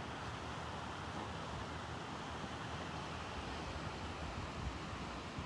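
Wind on the microphone: an uneven low rumble of gusts over a steady hiss.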